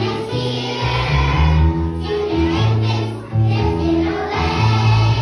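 A large group of children singing together along with recorded music that has a strong, steady bass line.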